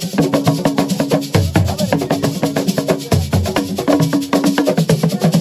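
Assiko percussion: drums struck in a fast, dense, driving rhythm.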